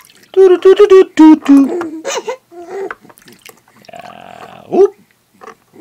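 A baby laughing and cooing: a quick run of bright, short laughs in the first second or so, then a few shorter coos and a rising coo a little before the end.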